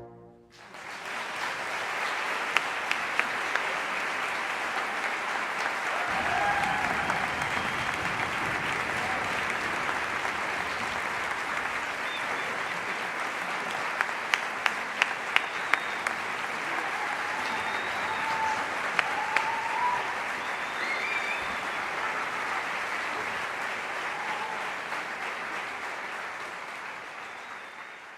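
Concert audience applauding, starting just after the band's final chord and fading out near the end, with a few single claps standing out.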